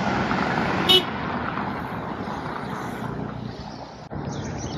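Road traffic passing close by, with one short car-horn toot about a second in. High bird chirps come in near the end.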